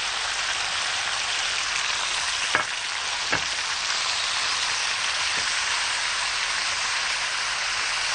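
Julienned beef strips searing in butter and oil in a very hot wok over high heat: a steady sizzle, with two sharp knocks a little under a second apart.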